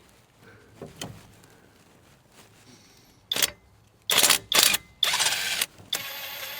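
Cordless impact wrench run in several short, loud bursts on the truck's hub bolts, then a longer, quieter steady run near the end.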